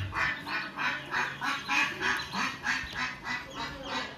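A brood of ducklings peeping, heard through a laptop's speakers: a steady string of short, high calls, about three or four a second.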